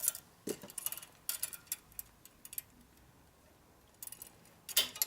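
Light metallic clicks and clinks as a chrome-plated line fitting is threaded back on and tightened, in a quick run over the first couple of seconds and a few more near the end.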